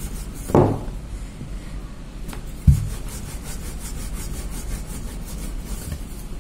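Wooden rolling pin rolling roti dough back and forth on a board, a steady rubbing in repeated strokes. Two knocks break in, about half a second in and near the middle, the second the louder.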